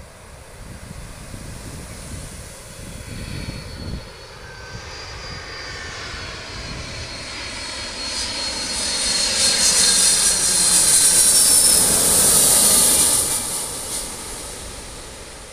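Twin-engine jet airliner passing low overhead on its landing approach: the engine noise builds for several seconds, with a high whine that slides down in pitch as it passes, is loudest about ten to thirteen seconds in, then fades as it goes on towards the runway.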